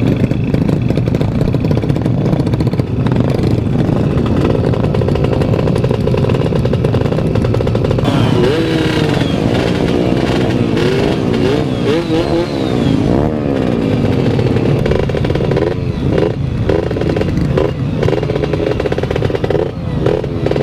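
Yamaha F1ZR's two-stroke engine running under way, heard from on board the motorcycle. About eight seconds in, its pitch starts rising and falling again and again as it revs up and shifts. A few brief clattering knocks come in the last few seconds.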